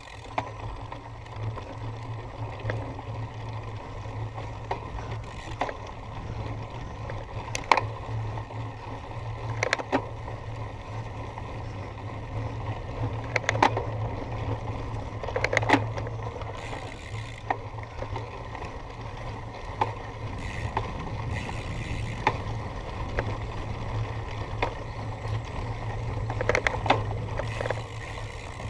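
Cyclocross bike being ridden over rough ground: a steady low rumble with sharp rattles and clanks from the bike every few seconds.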